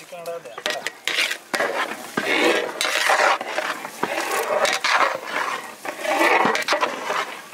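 A metal ladle scooping and stirring a large pot of mutton biryani rice, scraping and clinking against the side of the big metal cooking vessel in repeated strokes, about one a second.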